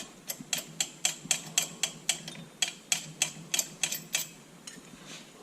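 Wrench turning down the nuts on a hitch U-bolt: a quick run of sharp metallic clicks, about three or four a second, stopping a little over four seconds in.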